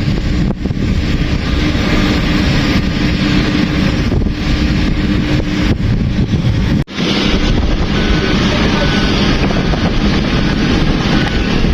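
Heavy construction machinery's diesel engine running steadily, with wind buffeting the microphone. A steady low hum holds through the first half, and the sound drops out for an instant a little past halfway.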